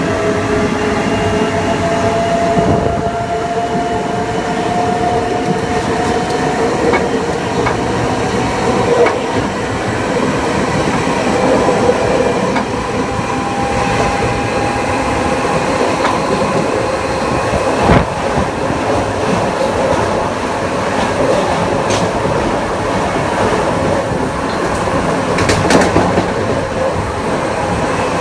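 Kawasaki M9 electric multiple unit under way: the whine of its Mitsubishi IGBT-VVVF inverter and AC traction motors, several tones rising slowly in pitch, over steady wheel-on-rail running noise. A few sharp clicks cut through, the loudest about two-thirds of the way in.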